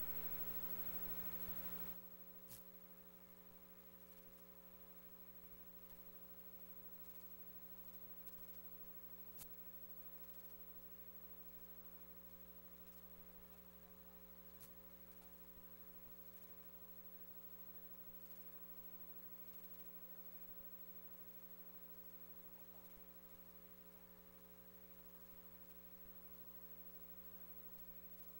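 Near silence with a faint steady electrical mains hum. A slightly louder tail cuts off about two seconds in, and a few faint clicks follow.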